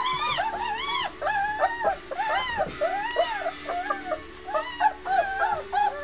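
A litter of three-week-old White Swiss Shepherd puppies whining and squeaking: many short, rising-and-falling cries overlapping, several a second.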